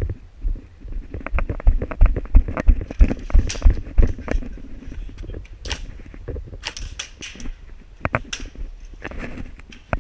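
Footsteps and gear knocks of an airsoft player on the move, with scattered sharp snaps of airsoft guns firing.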